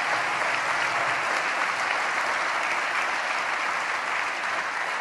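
Large audience applauding, a steady dense clapping that holds throughout.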